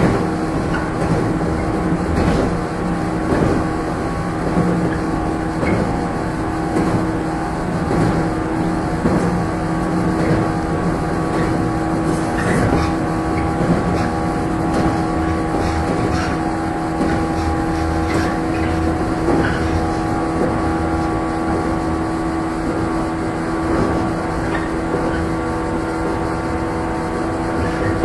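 Onboard running sound of a JR 115 series EMU motor car (KuMoHa 115): the DC traction motors and gears hum at a steady pitch over the rumble of the wheels, with occasional knocks from the track.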